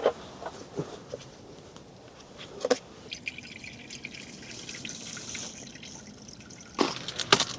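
Water trickling from the tap of a white plastic water jug into a container, starting about three seconds in. Sharp knocks of handling come near the start, once in the middle and in a quick clatter near the end.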